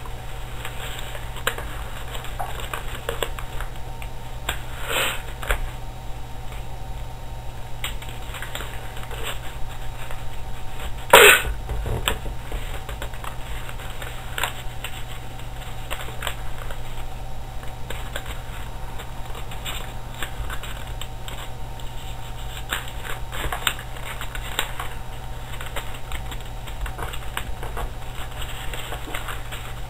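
A sheet of paper rustling and crinkling as it is folded and creased by hand, in scattered small crackles and clicks, with one louder burst about eleven seconds in, over a steady low hum.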